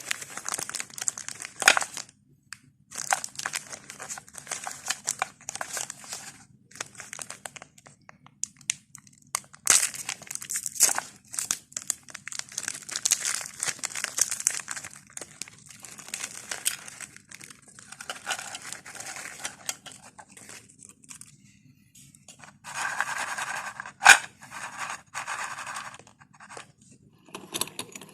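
Plastic wrapper of a glucose biscuit packet crinkling and tearing as it is opened and handled, in irregular bursts, with one sharp click about three quarters of the way through.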